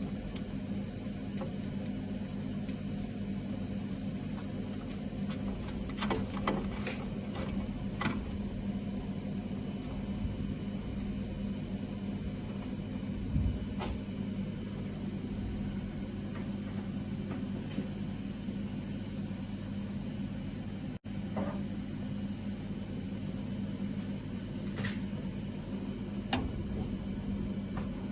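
Steady machine hum with a low drone, broken by a scattered handful of light clicks and knocks; the sound cuts out for an instant about two-thirds of the way through.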